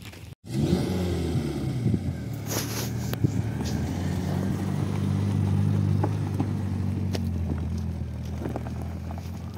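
Peugeot sedan's engine running at low revs as the car creeps over a rough dirt slope, with a few sharp knocks along the way. It starts abruptly about half a second in and gets a little quieter toward the end as the car moves away.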